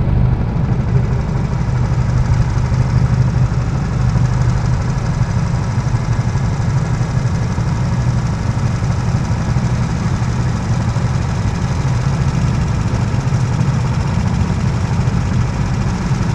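Go-kart engine idling steadily, a low even drone with no revving.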